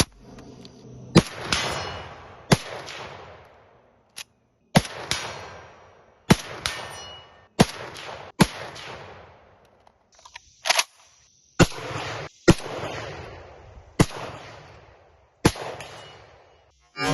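A Soviet SVT-40 semi-automatic rifle firing 7.62x54R rounds, about a dozen shots at an unhurried irregular pace roughly a second or so apart, each sharp report trailed by a long echo.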